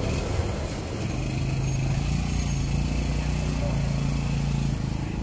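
A motorcycle engine running steadily close by, a low even engine note that sets in about a second in and drops away near the end, over street traffic noise.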